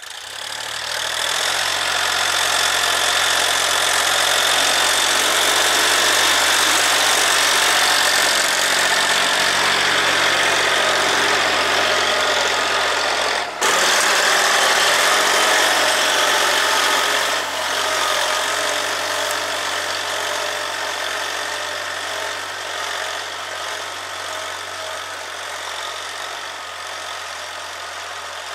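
Engine of a small Scout tractor running steadily as it pulls a plough through grassy soil. Just under halfway through it breaks off sharply and picks up again, then grows gradually fainter as the tractor works away.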